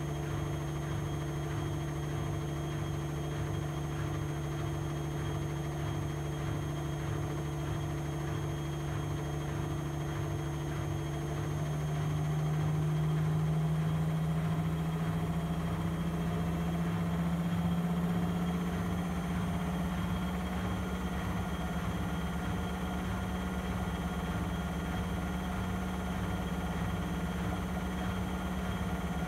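Vestel CMI 9710 front-loading washing machine spinning its drum in the spin cycle: a steady motor hum that rises a little in pitch and loudness about halfway through, then holds.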